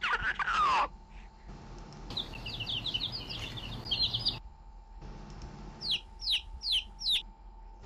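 A run of short AI-generated sound-effect samples, one after another. First comes a falling pitched sound, then a burst of rapid high chirps, then four quick high calls that each fall in pitch, about a third of a second apart.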